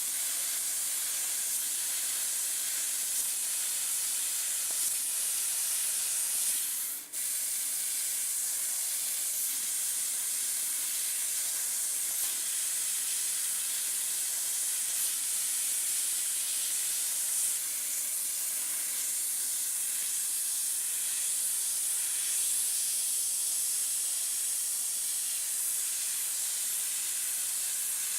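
Steady, high hissing noise, like a jet of steam or spray, with a brief drop about seven seconds in.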